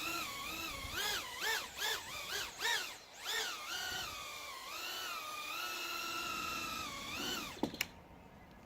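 Eachine Lizard95 micro quadcopter's 1104 6000 kV brushless motors whining in flight. The pitch rises and falls in quick surges with the throttle, then holds steady. Near the end it drops sharply, followed by a couple of sharp ticks. The motors are running normally after a motor replacement.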